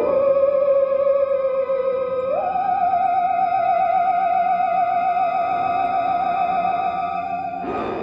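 Eerie sci-fi credits music led by a theremin: one wavering tone with vibrato drifts slowly down, glides up to a higher note about two seconds in and holds it. A brief rushing swell comes near the end.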